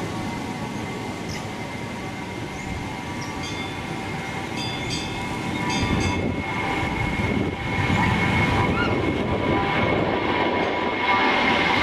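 Airbus A319 jet engines at takeoff power, heard from a distance: a steady rumble with a high whine, growing louder in the second half as the jet rotates and lifts off.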